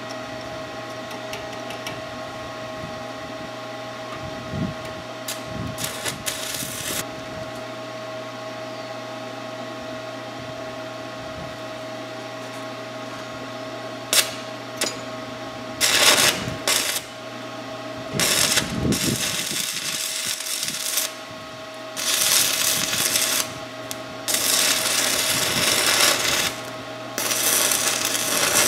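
Forney Easy Weld 110 stick welder: a steady hum, then from about halfway through a series of crackling, hissing arc bursts of one to three seconds each, with short breaks between them, as weld is laid on a worn shaft to build it up.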